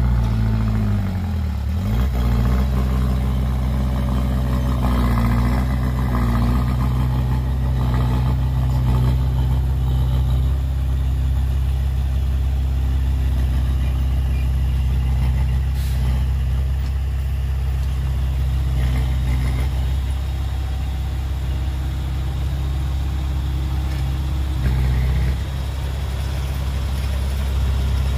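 Heavy diesel engine of earthmoving machinery running steadily. Its pitch dips briefly about a second in, then comes back up.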